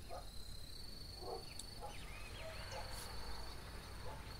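An insect's steady, high trill, with short bird chirps over it and a low background rumble.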